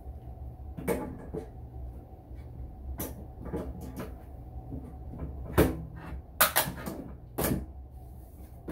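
Hard plastic knocks and clicks of a computer monitor being handled and tilted on its stand, a handful of separate knocks with the loudest cluster about six seconds in.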